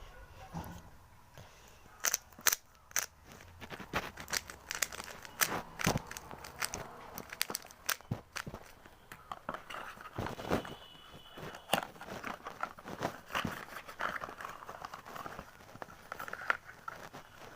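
Packaging being handled and opened: plastic and cardboard crinkling and tearing, with irregular sharp clicks and snaps.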